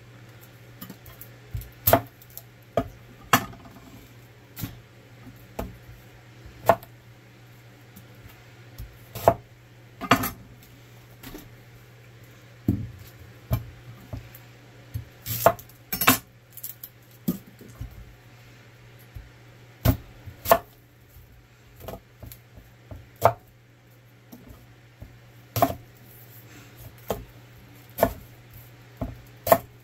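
Chef's knife cutting through whole yellow onions and knocking down onto an end-grain wooden cutting board: irregular sharp chops, about one a second with short pauses between. A steady low hum runs underneath.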